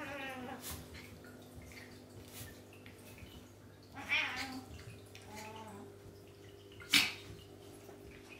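Tabby cat meowing during rough play with a puppy: a short falling call at the start, another about four seconds in, then a softer one. A single sharp click about seven seconds in is the loudest sound.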